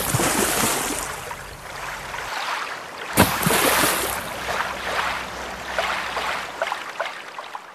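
Rushing, splashing water, with a fresh surge starting abruptly about three seconds in and fading afterwards.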